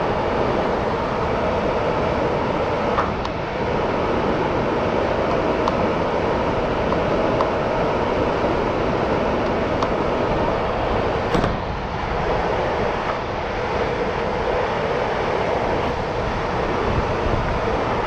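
Steady roar of rooftop air-conditioning equipment running, mostly fan noise, with a few light clicks over it.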